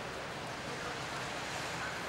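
Steady city street background noise: an even hiss with the low rumble of distant traffic.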